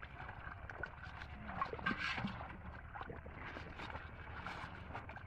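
Shallow muddy water sloshing and splashing as someone wades barefoot and gropes by hand through floating water hyacinth, with small irregular splashes and knocks; a louder flurry of splashing about two seconds in.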